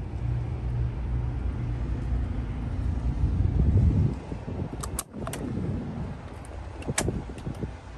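Cab door handle and latch of a 1984 Peterbilt 362 cabover being worked: a few sharp clicks about five seconds in as the recessed paddle handle is pulled, and another sharp click about two seconds later as the latch lets go. Both come over a steady low rumble.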